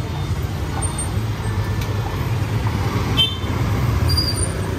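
Street traffic noise: steady hum of vehicle engines running close by, with a brief high beep about three seconds in.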